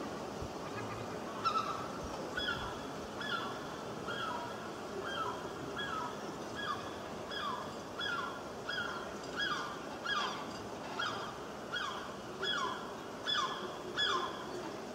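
Gulls calling over and over, a short falling cry roughly every second, over a steady background hiss.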